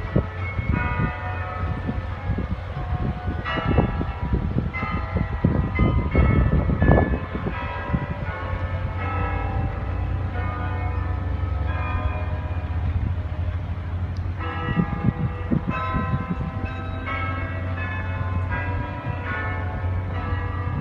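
Bells ringing, many struck tones overlapping and fading, over a steady low rumble.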